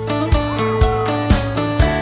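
Background music with a steady beat, about two beats a second, under held melodic tones.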